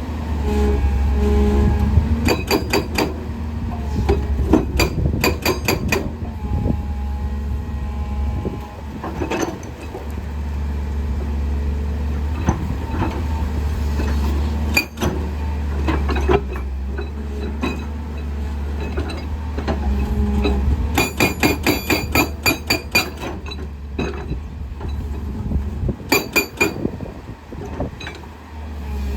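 Hydraulic rock breaker on a JCB excavator hammering rock in several bursts of rapid, evenly spaced blows, about six a second. Between the bursts the excavator's diesel engine runs steadily.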